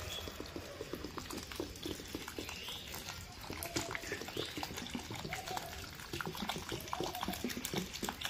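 Freshly repotted garden soil in a plastic pot being watered, air bubbling up through the wet soil as a dense run of small pops and crackles, with a few faint short tones.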